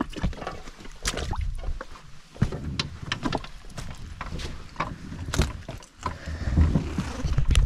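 Rubber boots stepping over wet rockweed and barnacle-crusted rock, giving scattered crunches, squelches and clicks. Near the end comes a heavier low rumbling as the inflatable dinghy is hauled in by its handle and bumps against the rocks.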